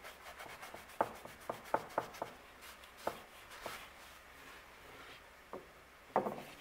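Soft rubbing of a cloth wiped over an AEBL stainless steel knife blade, cleaning off the etching electrolyte with Windex after electro-etching a maker's mark. Several light ticks and taps of the blade and hands on the bench sound through it, a cluster of them about one to two seconds in and another near the end.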